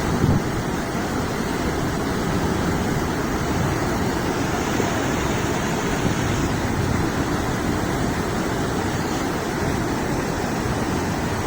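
Wind buffeting the microphone outdoors, a steady low rushing noise with a brief gust-like bump just after the start.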